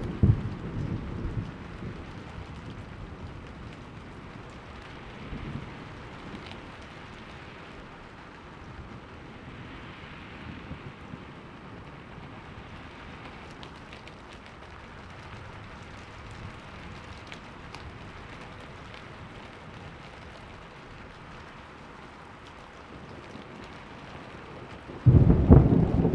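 Steady rain falling, with thunder rumbling at the start. Near the end a loud peal of thunder breaks in suddenly.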